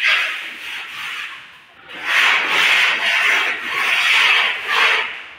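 Hand plastering tool scraping and rubbing wet cement render across a wall in repeated strokes, with a short pause a little under two seconds in.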